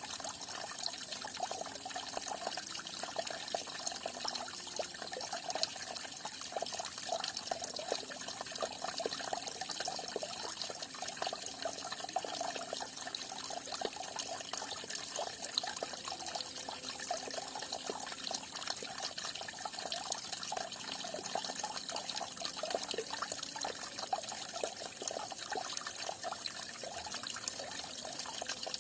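Falling water splashing steadily into water, a continuous dense splashing and bubbling with no pauses.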